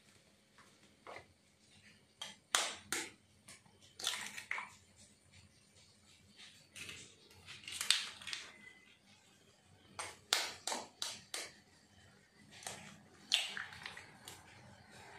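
Raw eggs being cracked: sharp taps of a metal fork against the eggshells come in short clusters every few seconds, with the crackle of the shells breaking open.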